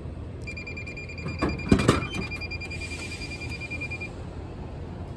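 DyDo drink vending machine dispensing a can. A high electronic tone starts about half a second in and holds for about three and a half seconds. Meanwhile, about a second and a half in, the can drops into the tray with a loud clunk and rattle.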